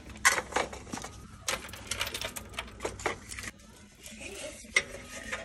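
Christmas ornaments with cardboard tags being handled and dropped into a plastic shopping cart: irregular clicks and light clattering.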